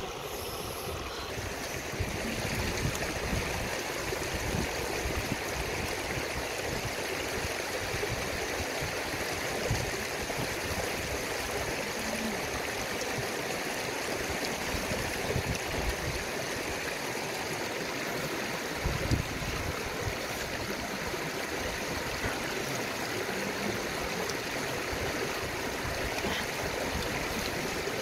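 Shallow river running over stones: a steady rushing of water.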